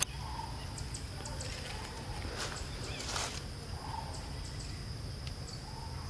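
Outdoor ambience: a steady high hum with a few faint short animal calls spread through it, and light scattered ticks.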